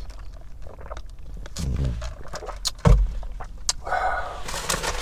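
Someone shifting and handling things in a parked car's cabin, over a low steady rumble. There are a few clicks, a dull thump about three seconds in, and then rustling near the end.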